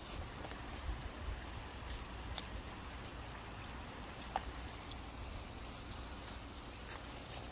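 Puppies moving about on gravel: a few short, sharp clicks and crunches, the loudest about two and a half and four and a half seconds in, over a steady low rumble.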